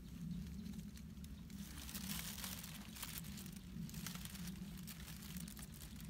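Thin plastic bag crinkling and leaves rustling and snapping as young leaves are picked by hand, in many small irregular crackles, over a low steady hum.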